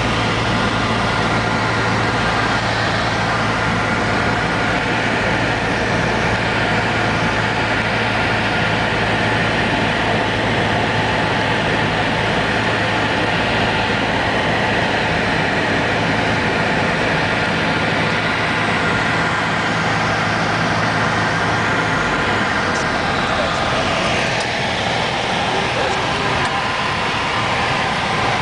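Steady engine and propeller drone of a light piston-engined aircraft, heard inside the cabin. About 22 seconds in, the low steady engine note changes.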